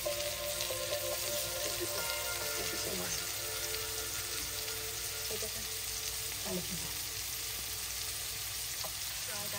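Spice-coated fish fillets sizzling steadily as they shallow-fry in hot oil in a nonstick frying pan.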